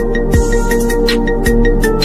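Background music with a steady beat: electronic, with held synth tones and light percussion.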